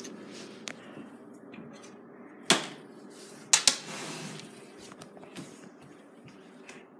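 Handling noise from a phone being carried and moved about, with a sharp knock about two and a half seconds in and two more close together about a second later.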